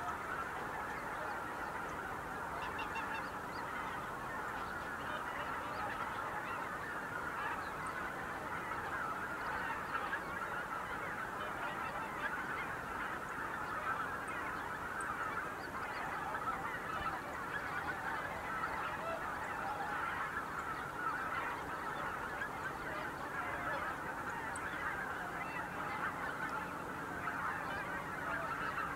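A huge flock of greater white-fronted geese calling in flight: a dense, unbroken chorus of many overlapping calls.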